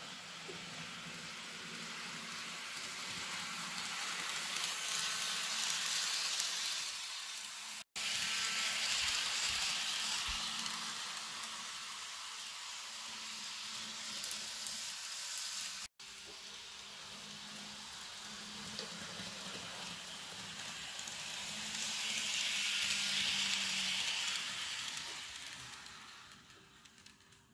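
N scale Atlas NJT ALP-45DP and multilevel coaches running on sectional track on a hard floor: a hissing rattle of wheels on rail with a low motor hum, swelling as the train passes close and fading again. The sound cuts off abruptly twice and dies away near the end as the train slows to a stop.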